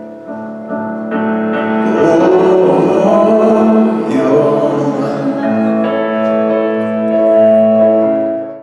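A live contemporary worship band playing while a singer draws out long held notes of the sung line. The music cuts off suddenly at the very end.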